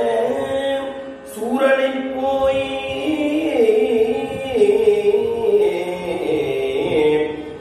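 A solo male voice singing a Tamil Shaiva devotional hymn in the Oduvar style, drawing out long held notes that slide from one pitch to the next.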